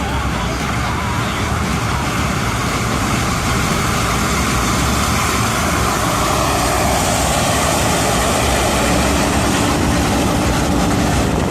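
John Deere 1550 combine running steadily under load while harvesting corn: a constant engine and machinery drone, with a faint steady hum that comes in about two-thirds of the way through.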